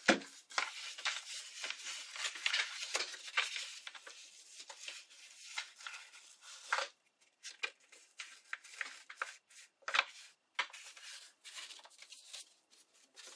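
Old book-page paper rustling and crinkling as hands fold and press a paper petal: a dense run of crackles for about the first half, then sparser, separate crackles.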